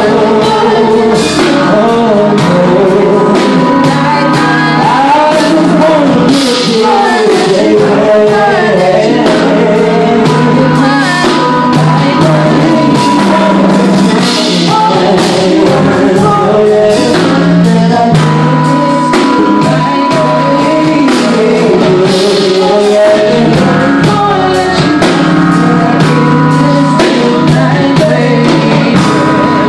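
Live R&B band playing: a male lead vocalist singing over electric guitar, bass guitar, keyboard and drums, with cymbal strikes.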